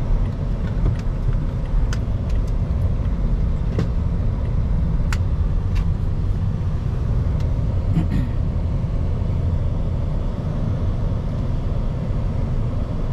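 Road and engine noise heard from inside a car's cabin while driving slowly: a steady low rumble, with a few scattered short clicks.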